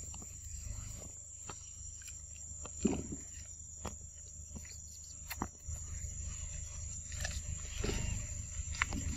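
Forest ambience around a group of macaques: a steady high insect drone, scattered clicks and leaf rustles, and a couple of short low animal sounds, about three seconds in and again near the end.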